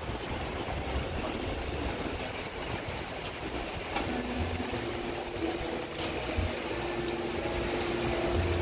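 Steady outdoor background noise with a low rumble, joined about halfway by a steady low droning hum, like a motor running.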